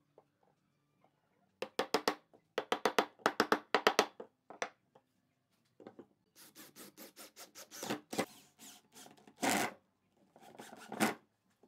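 Wooden stool parts knocking and rubbing together as a glued ear-shaped backrest is worked into its hole in the seat and the stool is handled. Clusters of quick knocks come in the first few seconds, then scraping and handling noise with a few louder bumps.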